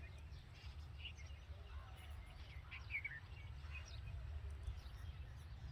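Red-vented bulbul chirping: short, scattered chirps, the loudest about three seconds in, over a steady low rumble.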